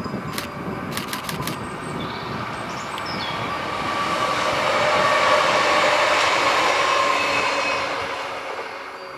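Electric regional multiple unit passing close by. Its running noise and a steady whine swell to their loudest about five to seven seconds in, then die away. A few sharp clicks come about a second in, with faint birdsong early on.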